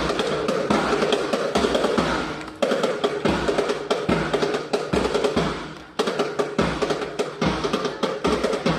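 Drums and percussion playing, dense repeated strikes with wood-block-like clicks.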